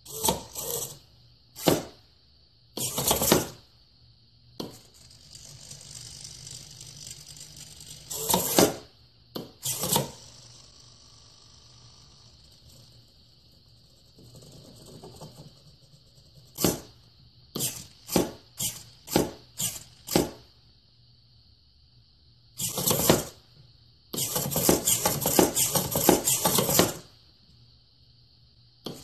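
A silver-painted wooden 'useless box': its toggle switch is clicked on, and the motor-driven arm pushes up the lid and flicks the switch back off, with the lid clapping shut. Sharp clicks and taps throughout, a quick run of clicks a little past halfway, and a long rapid rattle of about three seconds near the end.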